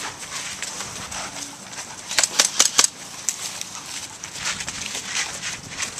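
Footsteps of a player moving quickly over rough ground, an uneven run of crunching steps that is loudest in a cluster about two seconds in.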